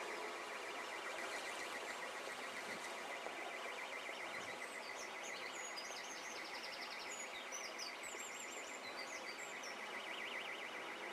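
Steady rush of a fast-flowing flooded river, with a rapid high-pitched beeping throughout and a songbird singing short chirps and a trill in the middle of the stretch.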